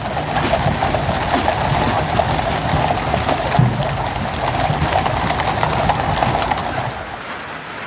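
Horses' hooves clip-clopping on the road as they draw the Gold State Coach, amid steady crowd noise, dropping away near the end.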